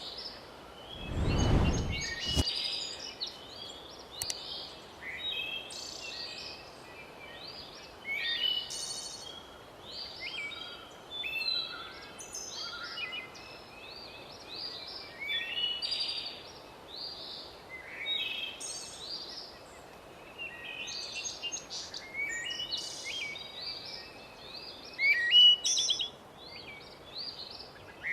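Several birds chirping and singing in short, overlapping calls and trills. About a second in there is a brief low rumble lasting a second or so.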